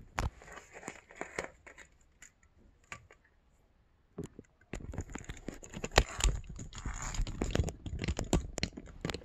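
Handling noise from the camera being gripped and moved: scattered rustles and clicks at first, then from about halfway through a dense, louder crinkling rustle full of sharp clicks.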